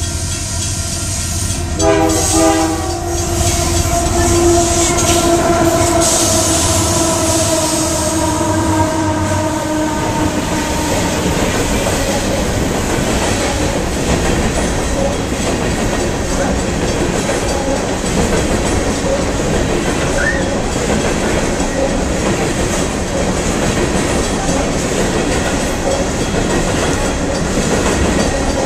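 Diesel freight locomotive's air horn sounding about two seconds in, held for several seconds and falling slightly in pitch as the locomotive passes close by, followed by the steady rumble and clickety-clack of coal cars rolling past on the rails.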